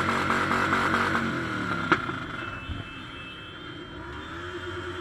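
Motorcycle engines revving up and down, the pitch rising and falling in slow swells, with a single sharp knock about two seconds in.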